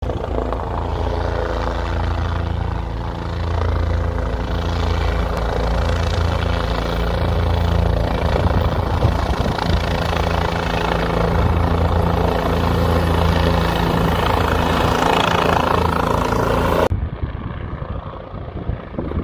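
Helicopter flying low and close, a loud steady rotor beat with a hum of steady engine tones. Near the end the sound drops abruptly to a fainter, more distant helicopter sound.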